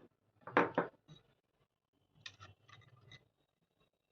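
Small parts and tools being handled: a short, loud scraping burst about half a second in, then a run of light clicks near the middle.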